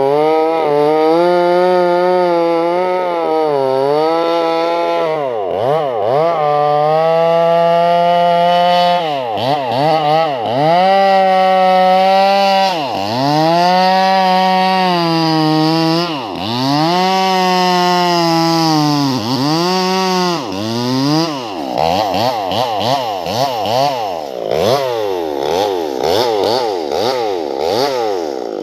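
A Sumura chainsaw with a 24-inch bar running at high revs while ripping curly-grained wood lengthwise. Its engine note dips and recovers every few seconds, and in the last several seconds the revs rise and fall rapidly, over and over.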